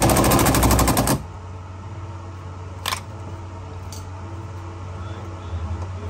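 Cordless driver rattling in a rapid burst of strokes for about a second on a fuel-pump clamp fastener that will not turn any further. Then a single sharp clack, and a fainter one a second later.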